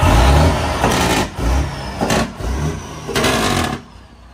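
A motor vehicle's engine revving, with a heavy low rumble and about three louder surges; the sound cuts off suddenly near the end.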